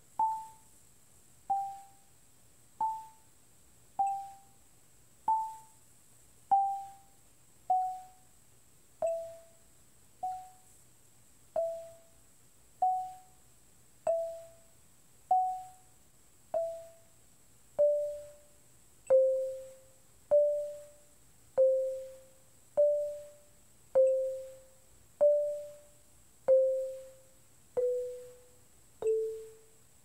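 Marimba played with yarn mallets: single notes of a G major scale warm-up at a slow, even pace, about one note a second, each ringing briefly and dying away. The notes step up and down while working gradually lower in pitch.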